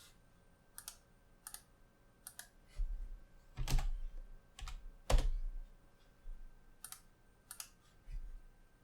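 Computer keyboard keys and mouse buttons clicking at an irregular pace, with two heavier strokes carrying a low thud about a third of the way and just past halfway through.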